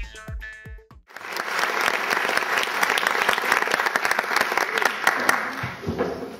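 Electronic intro music with a heavy, thumping beat stops about a second in. An auditorium audience then applauds steadily, and the applause dies away near the end as a man starts speaking.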